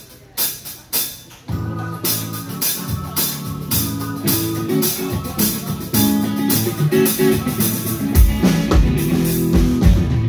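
Live rock band starting a song: two sharp hits in the first second, then drums and guitars come in together about a second and a half in. A heavy low end joins near the end.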